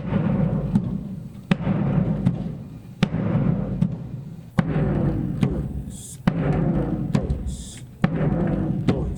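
Surdo bass drum struck in a slow, steady marcha rancho pulse: six deep strokes about a second and a half apart, each ringing and fading before the next.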